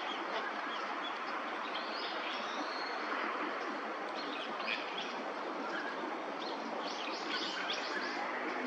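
Northern pintails calling: many short, high whistled calls that come thickest near the end, over a steady background noise.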